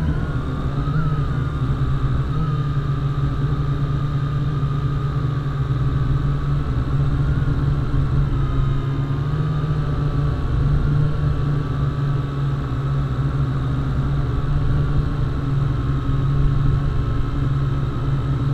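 MJX X101 quadcopter's motors and propellers running in flight: a steady hum with a higher whine above it, the pitch wavering slightly as the motor speeds adjust.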